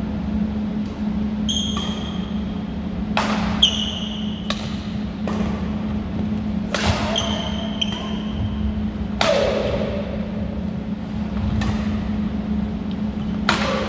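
Badminton rackets striking a shuttlecock in a fast doubles rally, a string of sharp hits a second or so apart. Short, high squeaks of sneakers on the wooden gym floor fall between the hits, over a steady low hum.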